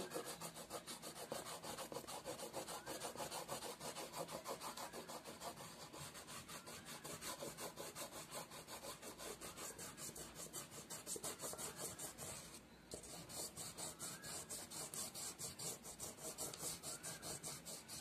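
Red oil pastel rubbed back and forth on paper in quick, even shading strokes: a faint rasping scrape, with a brief pause about two-thirds of the way through.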